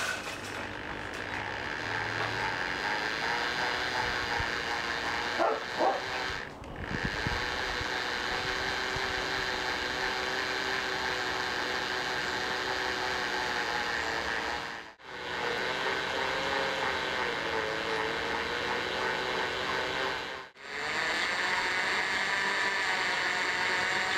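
Electric motor running steadily, spinning a steel rod while stainless steel wire winds onto it into a furnace heating coil. The sound breaks off briefly three times.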